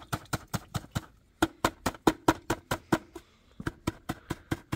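A stick stirring a liquid mixture in a plastic bucket, knocking against the bucket's sides in quick even strokes, about five a second, in three runs with short pauses between them.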